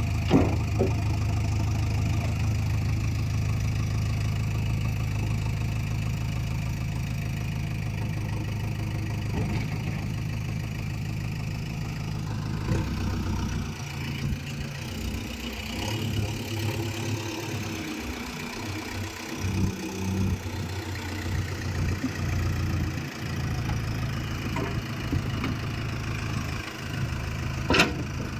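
Diesel engine of heavy machinery running steadily, then unevenly from about halfway through, with a sharp clank near the start and another near the end.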